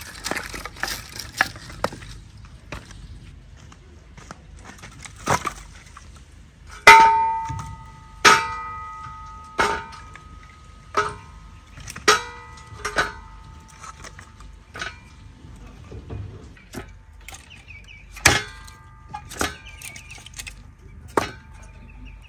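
Firewood being chopped with a hatchet and loaded into a steel fire bowl under a hanging cast-iron saj: a series of sharp knocks at irregular intervals, many of them followed by a ringing metallic clang, the loudest clangs from about a third of the way in.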